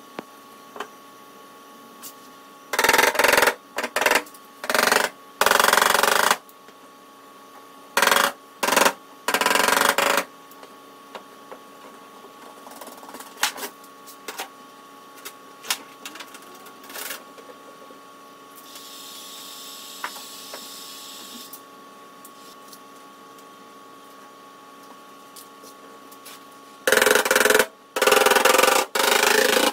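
Several short runs of loud, rapid clattering taps from dent-repair tools working an aluminium car bonnet, in three groups. A softer hiss runs for a few seconds midway.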